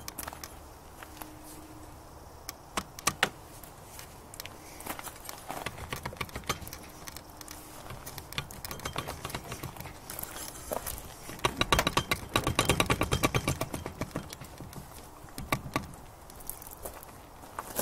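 Hand tools working on a Johnson 9.5 HP outboard's lower unit to take it off: scattered metal clinks and taps, then, a little past the middle, a ratchet wrench clicking fast and evenly for about two seconds as it turns a bolt.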